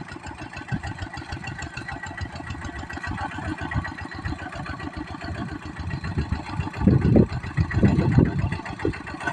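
Kubota diesel engine of a tractor running steadily with a rapid, even chugging beat. A few louder thumps come about seven to eight seconds in.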